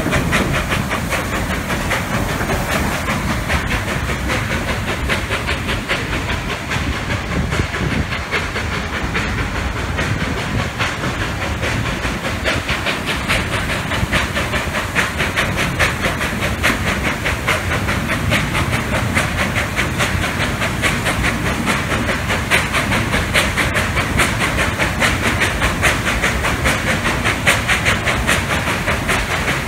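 Durango & Silverton No. 481, a K-36 2-8-2 narrow-gauge steam locomotive, under way with its passenger train. Its steam hiss and exhaust beats mix with wheels clattering on the rails, in a rhythm that grows plainer in the second half.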